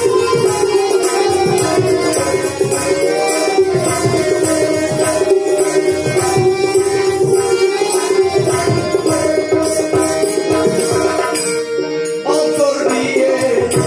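Bengali Baul folk music played without words: steady held melody notes over hand drums keeping a beat, with a plucked folk string instrument. The sound thins out briefly near the end.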